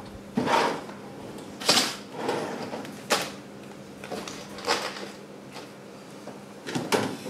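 Plastic cable ties being pulled tight through wire mesh and a plastic bucket rim, giving about five short zipping rasps, with handling of the mesh in between.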